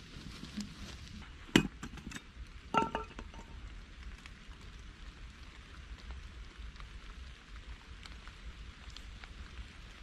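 Steady hiss of rain with two sharp clinks about a second and a half and three seconds in, the second ringing briefly.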